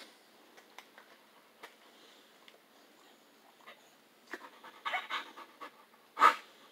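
A dog panting in quick short puffs from about four seconds in, then one short, loud burst near the end. Before that there are only a few faint ticks.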